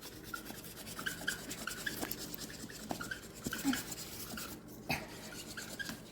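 Scratchy scraping and brushing at the sandy plaster block of a toy dinosaur fossil dig kit, with many small ticks and short squeaks and a sharper click about five seconds in.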